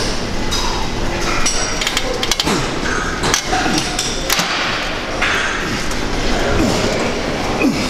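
Metal clanks and clinks of weight plates and gym machines, several sharp knocks in quick succession over a busy background.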